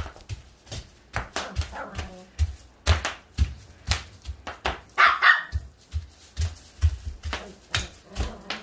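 Bubble wrap popping under stomping feet: an irregular run of sharp pops, several a second, over dull thuds of the footfalls on the floor. A short high-pitched cry about five seconds in.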